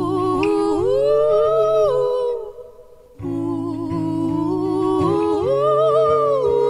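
A live acoustic duet playing: two long wordless sung phrases, each rising, held and then falling, with a short break between them, over acoustic guitar.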